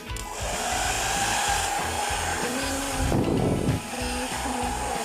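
AOKAI ionic hair dryer switched on just as the sound begins, then running with a steady airy hiss and a whine, over background music. About three seconds in, a brief louder low rush of air.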